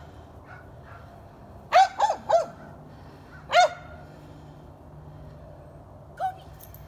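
A small dog barking in short, high-pitched yips: three quick barks about two seconds in, then one more about a second and a half later.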